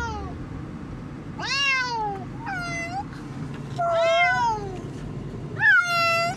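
Pet cats meowing inside a moving car: four drawn-out meows, the last one the loudest, over the steady low road rumble of the car. The cats hate riding in the car.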